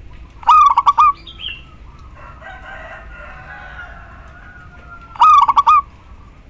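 Female zebra dove giving a short, rapid rattling call twice, about half a second in and again about five seconds in. It is a calling female used as a lure to make male doves sing. A longer, fainter call sounds in the background between them.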